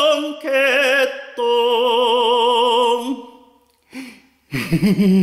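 Solo singing voice holding long notes with a wide vibrato, stopping about three seconds in; a speaking voice starts near the end.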